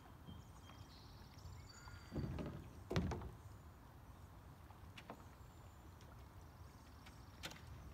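Quiet background with a rustle about two seconds in, then a dull thump, followed later by a few sharp clicks.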